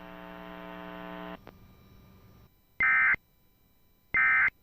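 A steady electrical hum that cuts off about a second and a half in, followed by two short, identical warbling data bursts about 1.4 seconds apart: the Emergency Alert System's digital end-of-message (EOM) tones that close the alert.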